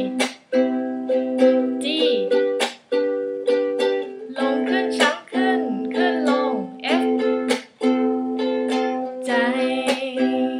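Ukulele strummed slowly through a four-chord progression (C, G, A minor, F) in a down, up, chuck, up, up, down pattern, with regular sharp strokes and short muted gaps between the ringing chords. A higher, wavering melody line sounds over the strumming at times.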